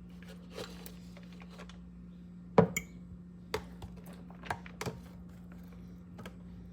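Scattered light knocks and clicks, with one sharper knock about two and a half seconds in, as raw chicken pieces are handled into a pan. A steady low hum runs underneath.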